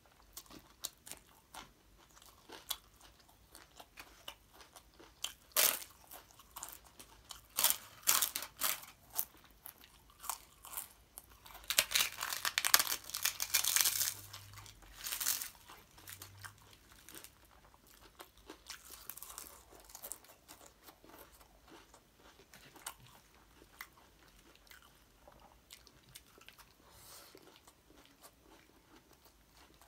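Close-miked eating: crisp papad bitten and chewed with a run of sharp crunches, loudest in the middle, and quieter chewing and mouth sounds around them.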